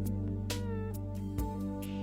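Soft instrumental background music: sustained pad chords over a low held bass, with a few plucked notes.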